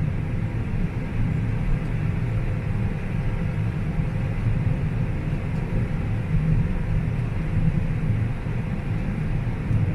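Combine harvester running steadily while harvesting corn: a constant low engine drone with no change in pitch.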